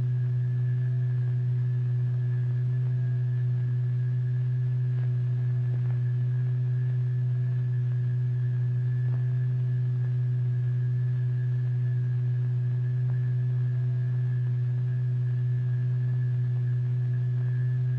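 A steady low pure tone from the loudspeaker-driven vibrating membrane, with fainter higher overtones. The tone does not change in pitch or loudness. This is the vibration that shapes the plastic mass on the membrane into balls.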